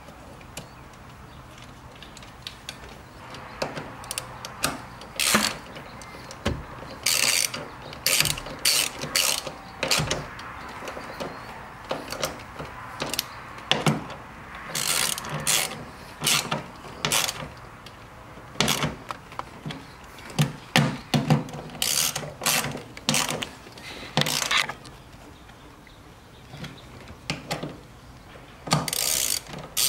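Hand socket ratchet clicking in short irregular runs as 10 mm nuts are run down onto the studs holding the shifter boot's gasket.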